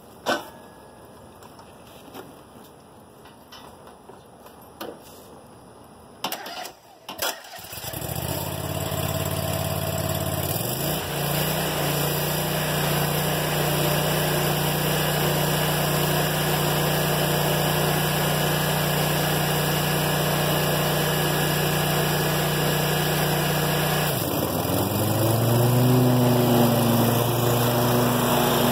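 Scag Tiger Cat II zero-turn mower's engine starting about seven seconds in, after some quiet clicks, then running steadily. Its speed steps up slightly a few seconds later, and near the end the revs rise again with a rising pitch and a little more loudness.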